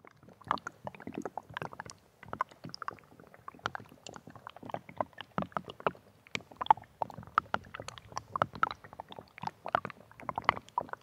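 Melting snowpack: meltwater dripping and trickling, heard as a dense, irregular patter of small ticks and drops with no steady rhythm.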